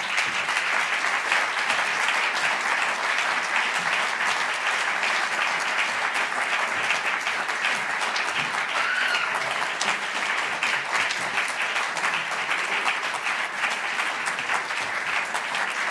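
Audience applauding steadily, the dense even clatter of many hands clapping.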